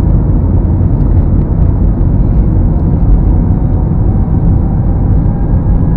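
Loud, steady rumble of an Airbus A321's jet engines and airframe, heard from inside the passenger cabin.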